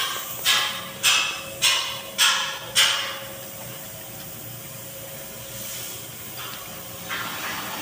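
Workmen's hand tools at work on the depot track: a regular run of about six strokes, close to two a second, that stop about three seconds in, followed by a couple of fainter scraping noises near the end, echoing in the large shed.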